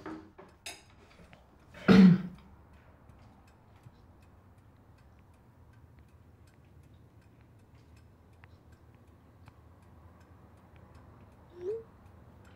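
A clock ticking faintly in a quiet room. A single loud knock about two seconds in, and a short sound rising in pitch near the end.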